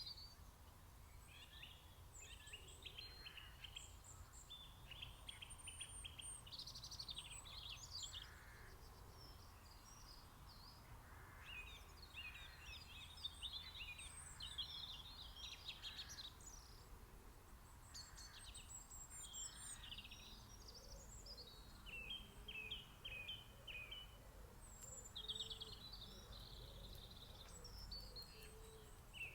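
A faint chorus of garden songbirds in spring: overlapping chirps, trills and short song phrases from several birds, with some lower calls in the second half, over a low background rumble.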